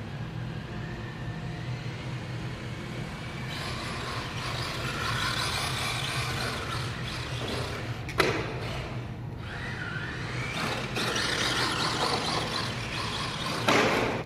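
Radio-controlled drift car running on a track, its pitch gliding up and down over a steady hum, with a single sharp knock about eight seconds in and a louder burst near the end.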